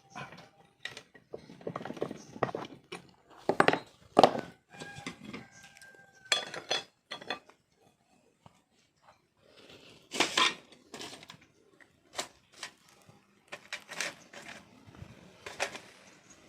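Irregular metallic clinks and clanks of metal parts and tools being handled and knocked together, a few strikes ringing briefly, with a quiet pause about eight seconds in.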